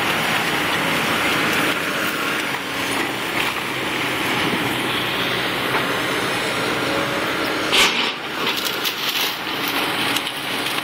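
Komatsu and Cat hydraulic excavators running as their buckets and thumbs tear through demolition rubble, with a steady machine noise over scattered crunching and snapping of wood and debris. One louder crack comes about eight seconds in.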